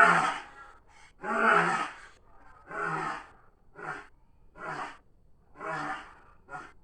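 Stegosaurus sound effect: a series of about seven short pitched animal-like calls. They come about a second and a half apart at first, then closer together, and each is quieter and shorter than the last.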